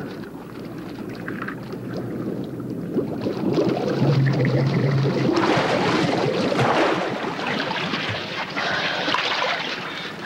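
Water splashing and bubbling as scuba divers in drysuits come up through a hole cut in the ice. It grows louder about three seconds in and eases off near the end.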